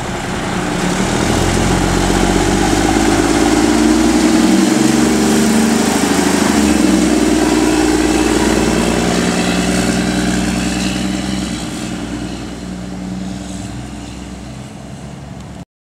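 Mack Granite crane truck's diesel engine running as the truck drives past and away, growing louder and then fading over the last few seconds.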